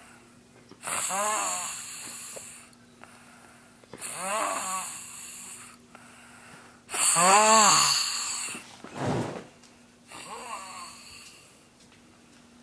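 A sleeping boy snoring loudly: four snores about three seconds apart, the third the loudest.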